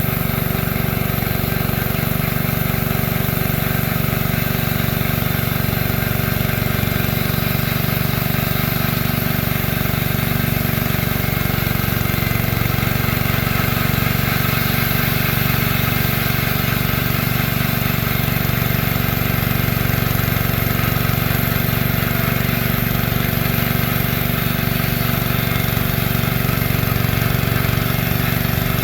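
Small petrol engine of a homemade bandsaw mill running steadily at constant speed, with no change in pitch or level.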